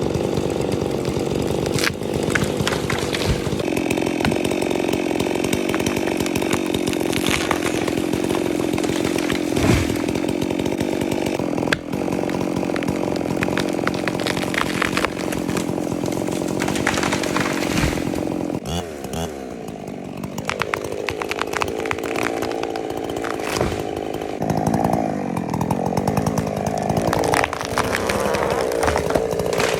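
Chainsaw running at high throttle while felling trees, its engine note steady at first, then dropping about two-thirds of the way through and rising and falling again near the end. Scattered sharp cracks and knocks come through the engine noise.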